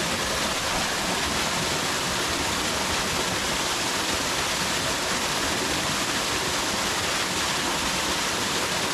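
Steady rush of water from a small, low-flowing waterfall and its river, an even hiss with no breaks.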